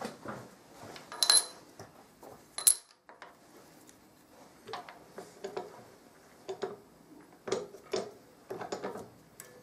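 Light metallic clinks and knocks of metal tools and parts being handled on a milling machine. There are two brighter ringing clinks, about a second in and near three seconds in, then a string of smaller knocks.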